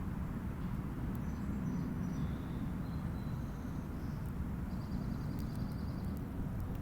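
Steady low rumble of a Boeing 787 Dreamliner jet airliner passing overhead, with faint bird chirps and a few small clicks.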